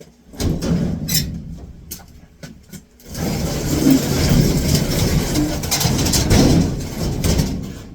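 Old sheet-metal furnace cabinet pulled out from under the lifted evaporator coil. A few knocks and scrapes come first, then about four seconds of continuous scraping and rumbling as it drags across the floor.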